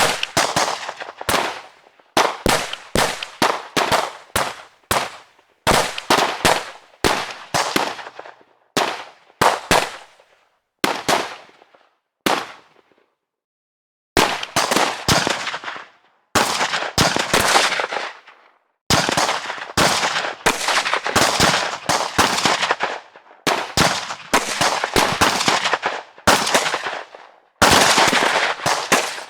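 Gunfire: many single shots and short rapid strings, each with a short echoing tail, with a break of a second or so about halfway through.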